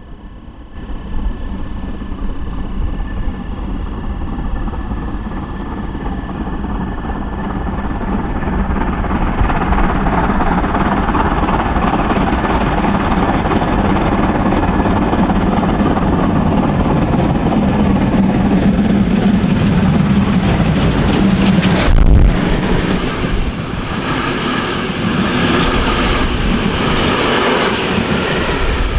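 Three-cylinder DR class 03.10 Pacific steam locomotive 03 1010 approaching at speed with a train, its noise building steadily until it passes close with a sudden loud rush about 22 seconds in. Its coaches then roll by with a rhythmic clatter of wheels on the rails.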